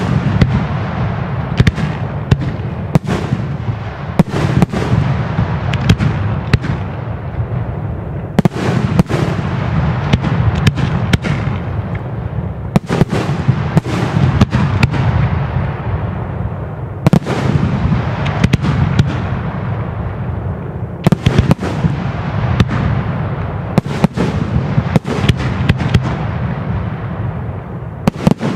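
Fireworks going off without pause: sharp bangs in quick succession, coming in waves every four seconds or so, each wave trailing off in a fading crackle.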